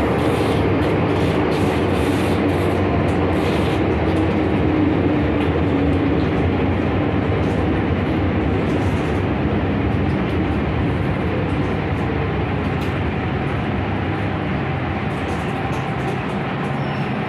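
MTR M-Train electric metro car heard from inside, running and braking into a station: a steady rumble of wheels and running gear, with a motor whine that falls in pitch as it slows.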